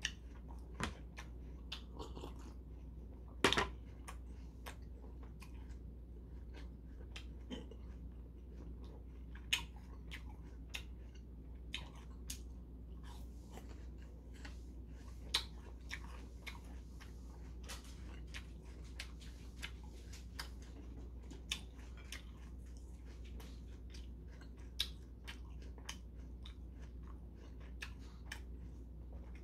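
A man chewing crunchy food, shrimp crackers and apple slices, close to the microphone: scattered crunches and mouth clicks, with one loud crunch about three and a half seconds in. A steady low hum runs underneath.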